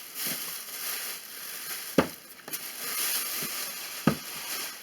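A bag rustling and crinkling while packaged outlets are handled, with two sharp knocks about two and four seconds in.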